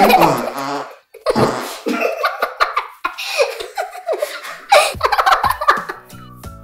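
Children laughing and giggling in bursts, with music coming in near the end.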